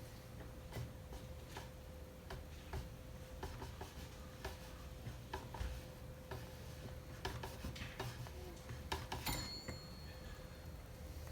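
Irregular small metal clicks and taps of pliers and parts being handled while the clutch drum is worked off a chainsaw, growing busier toward the end, with a brief metallic ring about nine seconds in. A faint steady hum runs underneath.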